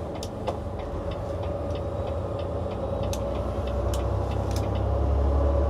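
Semi-truck engine and road noise heard from inside the cab while driving, a steady low drone that grows a little louder toward the end, with scattered light clicks and rattles.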